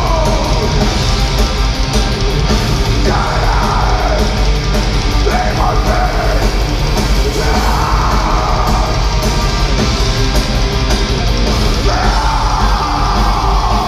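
A black metal band playing live at full volume, with distorted guitars and drums. Harsh screamed vocals come in over them in several phrases.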